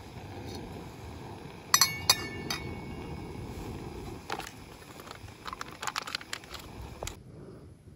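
Hard objects clinking together: three sharp, ringing clinks close together about two seconds in, then a scatter of lighter clicks and taps, over a steady low background noise that drops away abruptly near the end.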